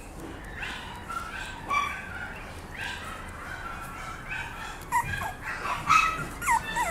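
Papillon puppy whimpering and yipping in short high-pitched cries, which come louder and closer together in the last two seconds.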